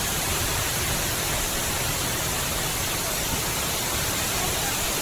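Steady rushing of water cascading down the Gerald D. Hines Waterwall, a tall man-made waterfall fountain; an even, unbroken roar.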